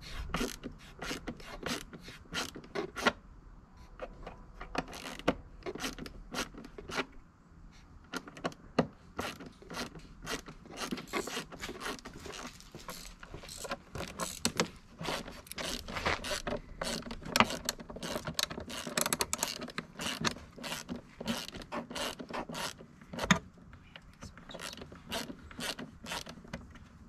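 Hand ratchet clicking in quick runs of strokes as screws on the engine-bay air-box cover are loosened, the clicks thinning out for a few seconds before picking up again.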